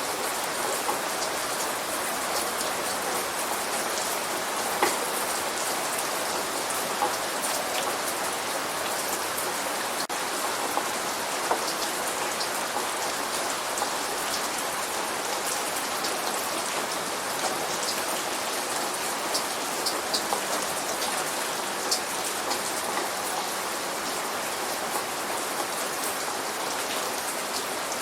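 Light rain falling steadily, with individual drops ticking sharply on a hard surface here and there.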